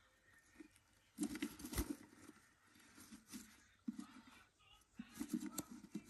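Budgerigar hen scrabbling about in a wooden nest box: claws scratching and feathers rustling close to the microphone, with sharp clicks, in irregular bursts about a second in and again around five seconds in.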